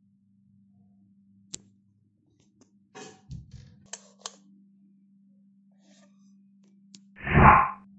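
Scattered small clicks and rustles, then a wall light switch clicked near the end, followed at once by a sudden loud burst of about half a second, the loudest sound here. A faint steady low hum runs underneath.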